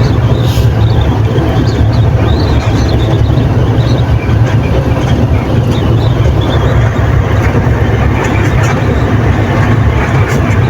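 Dump truck driving along a gravel road, heard from inside the cab: a loud, steady low engine drone with road noise over it.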